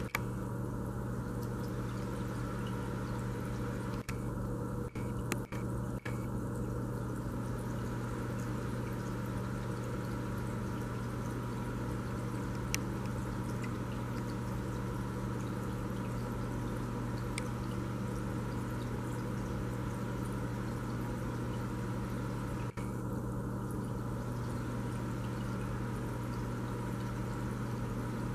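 Aquarium equipment running steadily: water trickling and dripping over a constant low hum.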